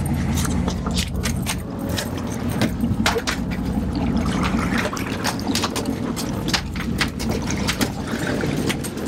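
Boat engine running at trolling speed, a steady low drone, with many sharp clicks and knocks from gear being handled on deck.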